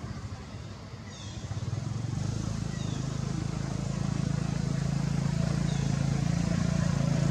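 A motor vehicle engine running with a steady low hum that grows louder from about a second and a half in.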